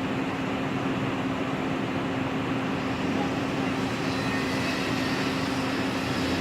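Steady mechanical drone: an even rushing noise with a constant low hum.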